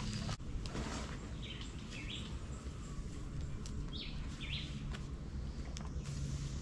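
Birds chirping: two short runs of high chirps, about a second and a half in and again about four seconds in, over a steady low background hum.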